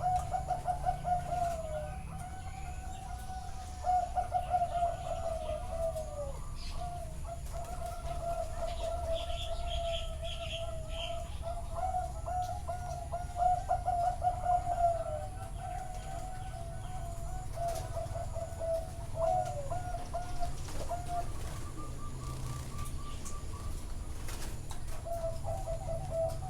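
Zebra doves cooing, their rapid rolling trills overlapping almost without pause, some near and some farther off. A short series of higher chirps comes about a third of the way in, over a steady low rumble.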